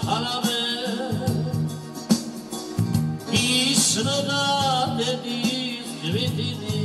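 A man singing a song into a microphone and accompanying himself on a Yamaha electronic keyboard. There are two sung phrases, one at the start and one about halfway through, over held keyboard chords and a steady beat.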